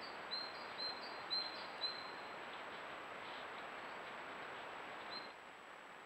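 A small songbird calling in winter woodland: a run of short, high call notes about twice a second over the first two seconds, then one more near the end, over a steady outdoor hiss.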